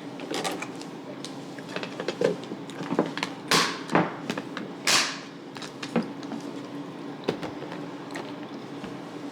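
A cake pop being handled and eaten: a run of small clicks and taps, with two short rustling bursts about three and a half and five seconds in.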